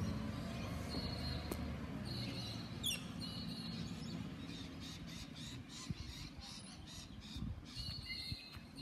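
Birds calling and chirping over the low, steady rumble of a garbage truck's engine working down the street.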